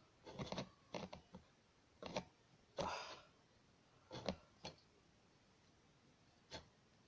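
Small hand-work sounds at a workbench: irregular short dry scrapes and clicks, in about six clusters with quiet gaps between, the longest pause before a lone click near the end.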